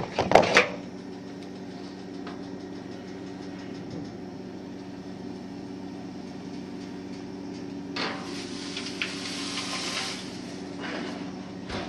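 Oven door shut with a few knocks, then a steady low hum, and about eight seconds in a hiss lasting roughly three seconds as the stove's oven controls are set.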